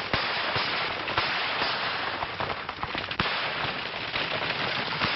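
Constant hiss of a worn 1930s film soundtrack, with irregular sharp cracks and pops scattered through it.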